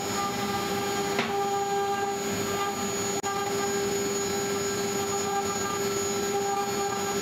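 CNC router spindle running with a steady whine while a V-bit engraves letters into an oak block, with a short click about a second in.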